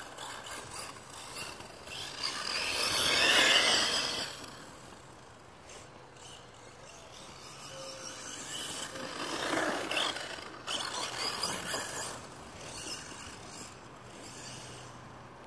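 Redcat Blackout XTE electric RC truck, run on a 3S battery, driving across dry grass. Its motor, drivetrain and tyres make a rough noise that swells as the truck passes, loudest about three and a half seconds in and again around ten seconds in.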